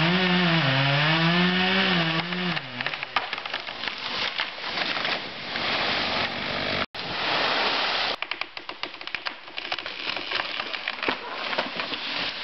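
Chainsaw running, its pitch rising and falling for the first few seconds, then a long rush of cracking branches and splashing water as a felled tree comes down into the river. After a brief break, more crackling and splashing.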